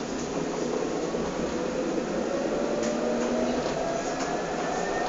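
Electric tram running, heard from inside the car: a steady rumble of wheels on rail, with a motor whine rising slowly in pitch as the tram picks up speed.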